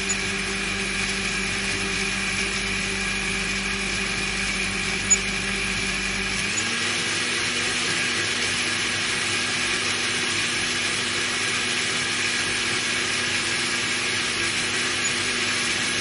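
Electric countertop blender running at a steady speed with an even motor hum. Its pitch steps up slightly about six and a half seconds in, and there is a single short click about five seconds in.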